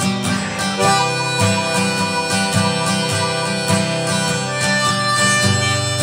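Guitar and harmonica playing an instrumental tune together: the harmonica comes in with long held notes about half a second in, over a steady picked and strummed guitar rhythm.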